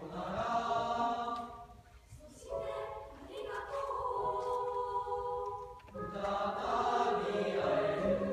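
A school choir of students singing together, holding long notes in phrases, with short breaks about two seconds in and again about six seconds in.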